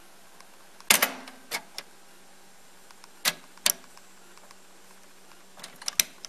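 Piano-key transport buttons of an Akai CS-M40R cassette deck being pressed, giving sharp mechanical clunks and clicks: a loud one about a second in with smaller clicks after it, two more a little past the middle, and a quick cluster near the end, over a faint steady hum.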